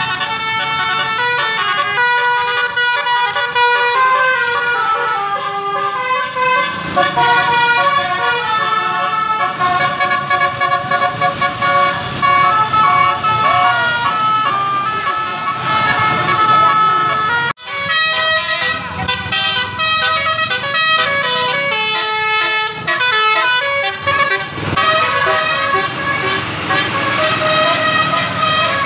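Bus 'telolet' multi-tone air horns playing quick melodic runs of notes. The sound breaks off sharply about two-thirds through, then the horn tune starts again.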